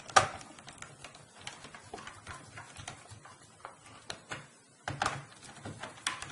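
Sharp plastic clicks and taps as the hard drive compartment cover is fitted back onto the underside of a laptop and handled. There is a loud click just after the start, a run of small ticks, and more knocks near the end.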